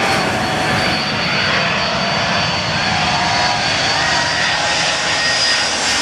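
Boeing 747's four jet engines on low final approach, a steady loud rush of noise with a thin high whine over it.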